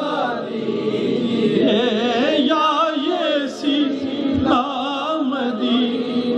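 A man singing an Urdu devotional salam (naat) into a microphone, holding a long, ornamented line whose pitch wavers and bends.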